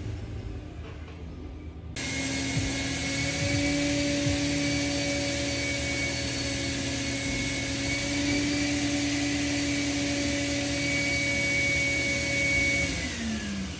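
Pneumatic grain probe's vacuum blower switching on abruptly about two seconds in and running with a steady rushing whine as it pulls a grain sample up from the hopper trailer, then winding down with a falling pitch near the end.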